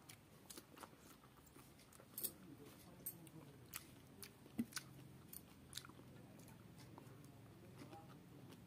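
Faint chewing of fresh pineapple pieces: soft, wet mouth sounds with a run of short sharp smacks and crunches between about two and six seconds in.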